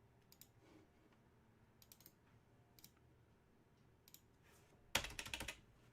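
A few scattered clicks, then a short burst of rapid computer keyboard typing about five seconds in.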